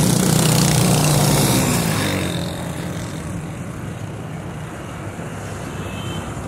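Small commuter motorcycle engine running as the bike rides past close by, loud for about two seconds and then fading away into steady street traffic noise.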